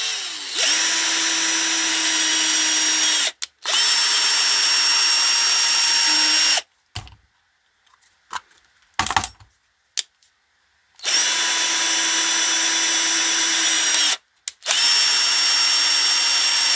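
Power drill running in four bursts of about three seconds each, the first spinning up at the start. It is driving an M4 tap to cut threads into a stripped screw hole in the dryer drum's plastic vane.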